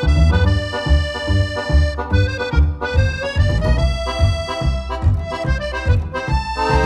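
Background music led by an accordion-like reed instrument playing a melody over a steady, bouncy beat.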